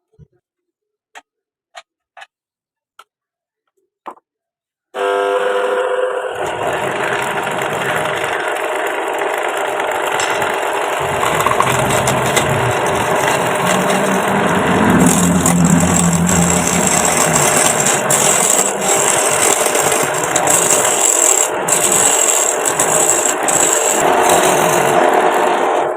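A few sharp knocks, then a homemade wood lathe starts about five seconds in and runs steadily with a turning tool cutting the spinning wood, stopping abruptly at the end.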